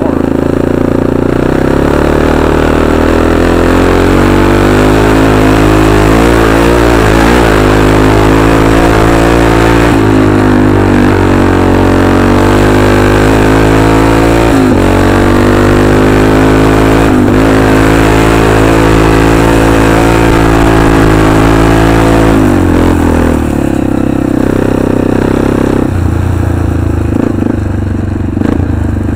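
Arctic Cat 500 four-wheeler's engine running hard under throttle, its pitch rising and dipping as the throttle is worked. About twenty-three seconds in the pitch drops lower as the throttle eases off.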